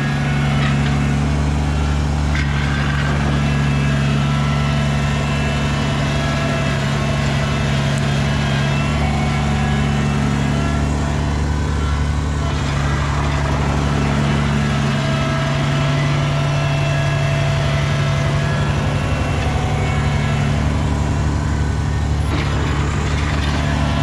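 Kubota BX compact tractor's engine running steadily while it pushes snow with its front blade.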